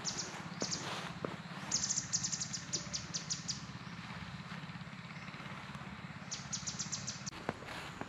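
Birds calling in several bursts of quick, high trilled notes, over a steady low engine hum. A few soft footsteps are heard too.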